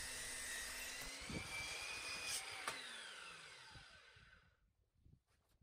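DeWalt mitre saw motor running with a steady whine, then switched off about two and a half seconds in. Its pitch falls as the blade spins down and fades out, with a couple of light knocks along the way.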